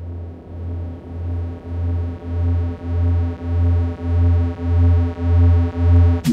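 Synthesizer music: a held, steady chord over a low throbbing bass note that pulses a bit under twice a second and swells louder throughout, cut by a sharp click at the very end.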